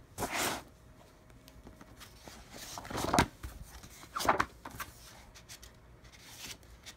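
Paper pages of a spiral-bound planner being turned, giving three swishes: one at the start, one about three seconds in and one a second later.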